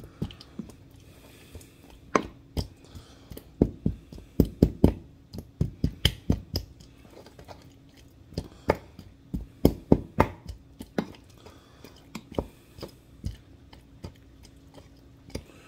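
Wooden mortar and pestle mashing soft butter into ground anchovies: irregular dull knocks and scrapes of the pestle against the bowl, in loose clusters with short pauses between.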